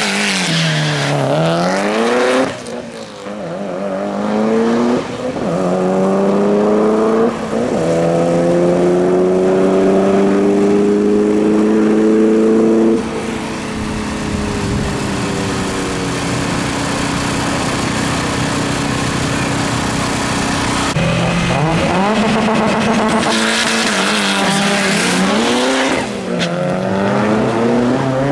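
A Mitsubishi Lancer Evolution's turbocharged four-cylinder engine on a hard drag-strip run. The engine note climbs and then drops at each upshift, every two to three seconds. It then holds a steadier note for several seconds, and more climbing and dropping runs follow near the end.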